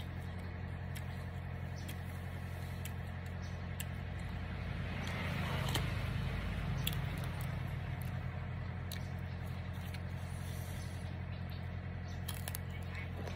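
Close mouth sounds of biting and chewing raw green mango, scattered clicks and crunches, over a steady low background hum. A broader rushing noise swells and fades about five to seven seconds in.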